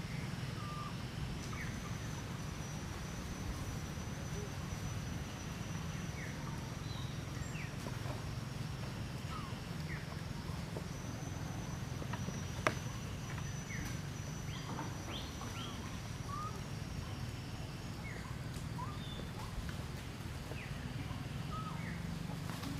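Outdoor forest ambience: short bird chirps scattered throughout, a thin steady insect tone high up that drops out for a few seconds in the middle and again near the end, and a low steady rumble underneath. One sharp click about 13 seconds in.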